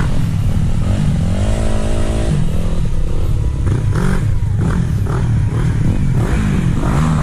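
Sport quad (ATV) engine revving hard and easing off again and again as the quad is ridden through mud, the pitch climbing, holding for about a second, then dropping.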